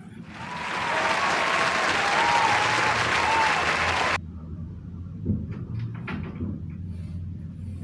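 Crowd applauding and cheering, cutting off suddenly about four seconds in, followed by a few faint knocks.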